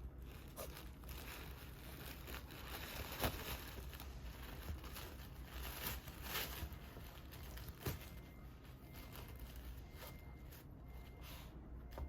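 Product packaging being unwrapped by hand: paper and plastic wrap tearing and crinkling, with a few light clicks and knocks as the box is handled.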